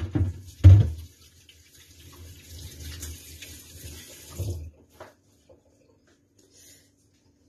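A loud clunk just under a second in, then a kitchen tap running into a sink for about four seconds before it is turned off.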